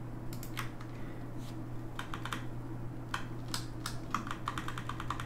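Computer keyboard keys clicking: scattered single presses, then a quick run of about fifteen presses near the end as the Shift+R shortcut is hit repeatedly.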